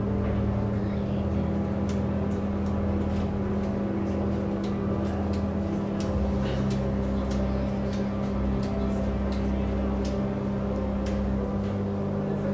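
A steady low hum underneath scattered light clicks and snaps of playing cards being handled and dealt onto a table.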